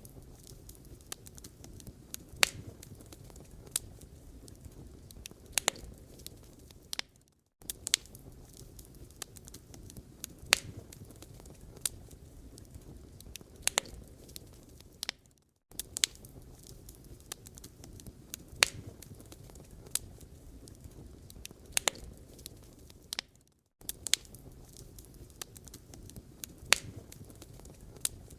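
Wood fire burning in a fireplace, crackling with irregular sharp pops over a low steady rumble. The sound drops out briefly about every eight seconds.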